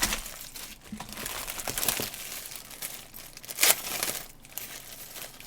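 Packaging crinkling and rustling as merch is handled and unwrapped by hand, in irregular bursts, with a louder crinkle about three and a half seconds in.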